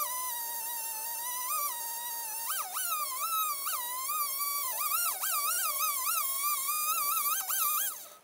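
Background music: a single wavering, theremin-like lead tone sliding up and down in pitch. It cuts off suddenly near the end.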